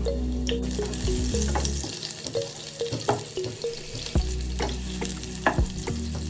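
Food frying and sizzling in a pan, stirred with a utensil that clicks and knocks against the pan; the sizzle comes up about a second in.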